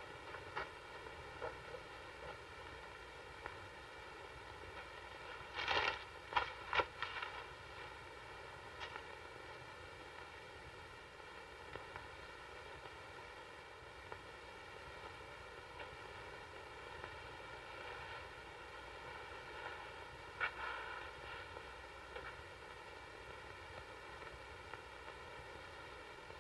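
Quiet soundtrack hiss with a faint steady hum, broken by a short cluster of rustling, scraping sounds about six seconds in and a briefer one around twenty seconds in.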